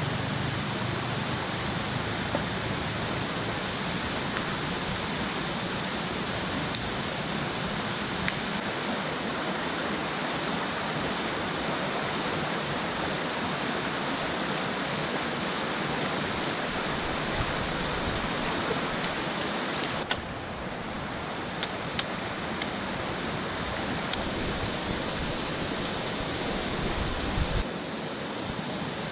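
Rushing water of a rocky forest stream, a steady even wash, with a few brief sharp clicks and a short low thump near the end.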